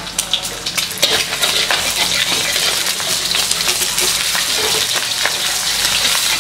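An egg frying in hot oil in a wok, sizzling and crackling steadily, with a spatula scraping and knocking against the wok to free the egg where it sticks.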